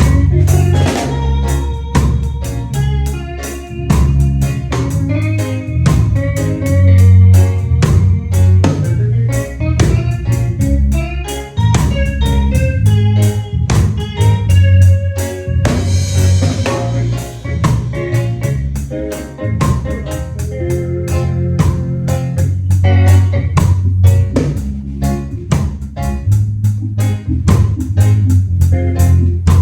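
A live band playing an instrumental passage: drum kit keeping a steady beat over a heavy bass line, with keyboard and guitar parts on top. A cymbal wash rings out about halfway through.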